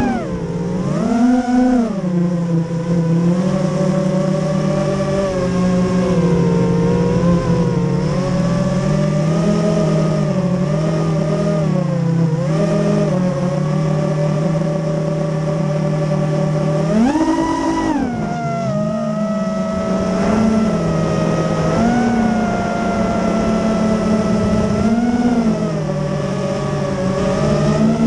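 FPV racing quadcopter's motors and propellers buzzing, heard through the onboard camera. The pitch mostly holds steady but swoops up and back down with throttle punches, about a second in, hardest about two-thirds of the way through, and twice more near the end.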